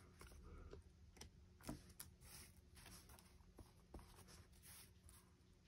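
Near silence, with a few faint taps and soft paper rustle as a wooden-block rubber stamp is pressed and rocked onto a strip of paper.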